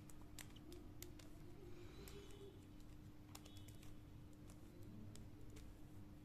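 Faint, irregular plastic clicks of a Gear Pyramix puzzle's geared pieces being twisted by hand.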